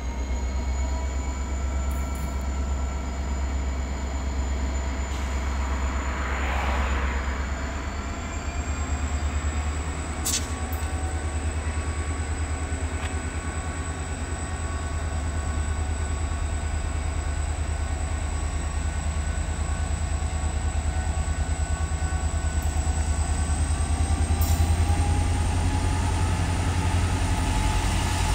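Diesel freight locomotive and its train approaching along the track: a steady low engine rumble and drone with faint whining tones that rise slightly in pitch near the end.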